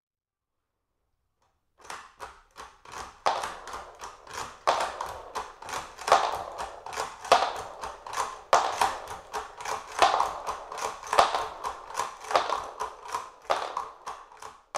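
Mosin-Nagant 91/30 bolt worked by hand over and over, feeding rounds one after another from an extended magazine. It makes a run of sharp metallic clacks, a loud one about every second and a quarter with lighter clicks between. The clacks start about two seconds in and stop abruptly at the end.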